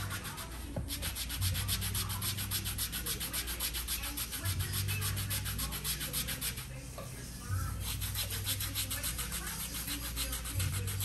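Gloved hands rubbing scrub over slick skin in quick, even strokes during a pedicure leg massage, with a short pause about seven seconds in. A low hum comes and goes underneath.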